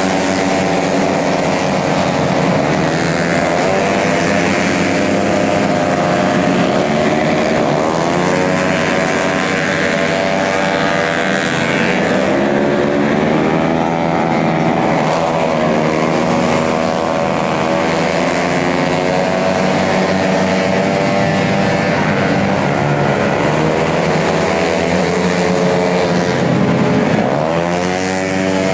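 Race-tuned 150cc automatic scooters running on a road race track, engine pitch repeatedly rising and falling as they accelerate and slow, with more than one engine heard at once at times.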